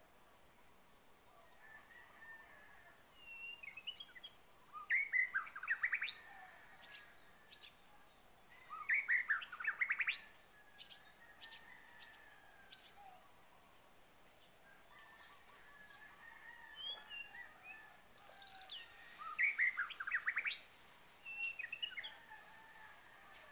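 Songbirds chirping, with three louder bursts of quick, rapid notes about five, nine and nineteen seconds in and sharp single notes in between, over fainter distant bird calls.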